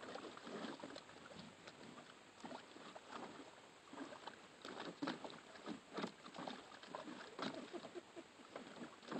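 German shepherd puppy splashing and pawing at the water in a plastic kiddie pool, with irregular faint sloshes and splashes, several a second.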